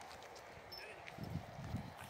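Footsteps on a dirt path, a run of soft low thuds starting about a second in, over a steady faint outdoor background hum.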